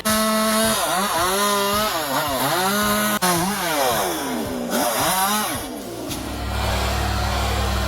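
A chainsaw engine revving, its pitch repeatedly dropping and climbing back as it works. About six seconds in it gives way to a steady low engine drone.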